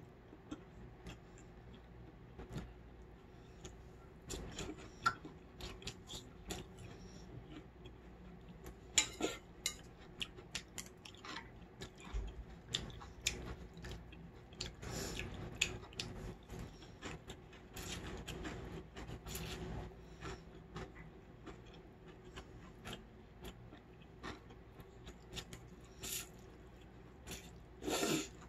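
Eating cold noodles in broth from a stainless steel bowl with wooden chopsticks: the chopsticks click against the bowl between chewing and several slurps. The longest and loudest slurp comes near the end.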